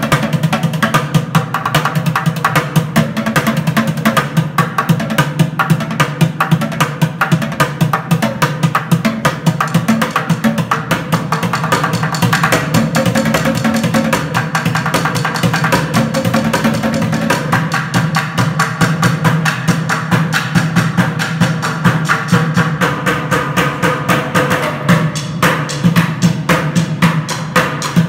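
Bucket drumming: two drummers playing a fast, dense, unbroken rhythm with drumsticks on plastic five-gallon buckets and a metal pail.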